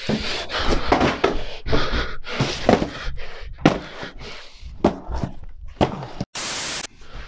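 Cardboard box being handled and opened on a workbench: a run of thuds, knocks and rustling, scraping cardboard. Near the end, a half-second burst of hiss cuts in and stops abruptly.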